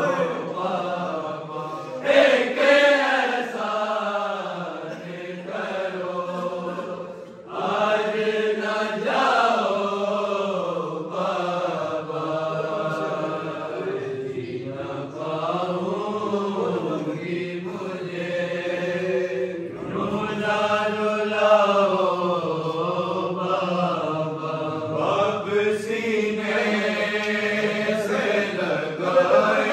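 A group of men chanting an Urdu noha, an unaccompanied mourning lament for the martyrdom of Imam Ali, in long rising and falling sung lines.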